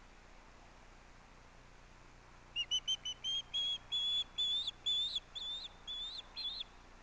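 Osprey calling: a series of about a dozen high whistled chirps. The first few are short and quick, and the later ones are longer with an upward flick at the end.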